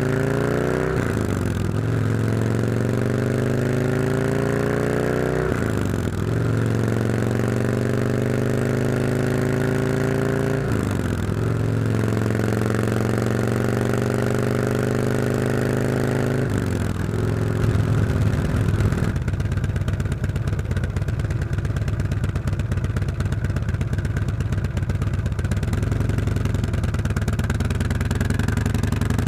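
Harley-Davidson Road King's V-twin through stock mufflers on Jackpot stainless 2-1-2 head pipes with the catalytic converter removed, accelerating through the gears: the pitch climbs and drops sharply at each upshift, about every five seconds, four times. It then settles into a steadier run for the last ten seconds.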